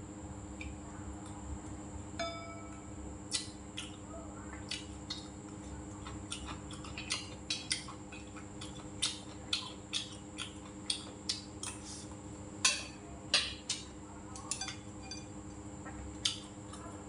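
Eating sounds: chopsticks clicking and scraping against a stainless-steel bowl of rice, with chewing. The clicks are short and irregular, with a few louder ones about two-thirds of the way through, over a steady low hum.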